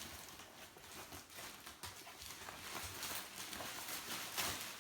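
Irregular rustling and scraping, with scattered light clicks and knocks, as a gear bag and its tie-down strap are handled and undone.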